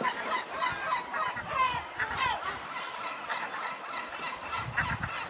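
Many gulls calling at once, short overlapping cries crowding over each other. A low rumble comes in near the end.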